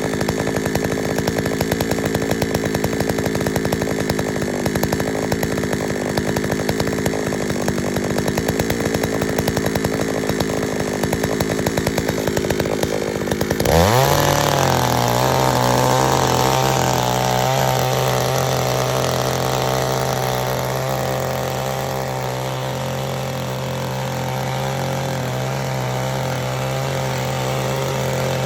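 Small petrol tiller's engine running at low speed, then throttled up about halfway through: its pitch rises quickly and settles at a steady higher speed.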